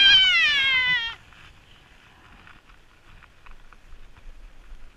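A woman's loud, high-pitched scream while she falls on her snowboard, sliding down in pitch and stopping about a second in. Faint scuffs and ticks of snow follow.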